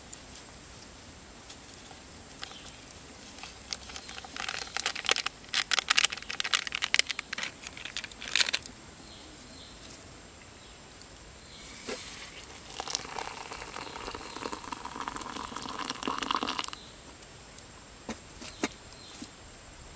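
Plastic drink-mix sachet crinkling as it is handled and emptied into a mug, then hot water poured from a kettle into a ceramic mug for about four seconds, stopping abruptly.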